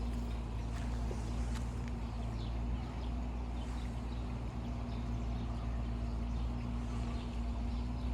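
Steady outdoor background: a constant low hum with faint, scattered bird chirps.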